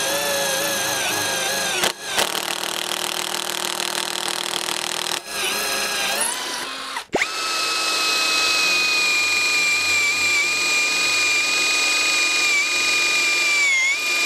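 Cordless impact driver boring a 6 mm spear-point multi-material bit into a concrete brick. After a cut about halfway through, a cordless drill driver drills the brick with a steady high motor whine.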